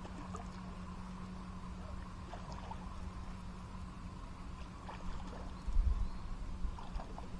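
A steady low hum with a few faint scattered clicks, and a brief low rumble about six seconds in.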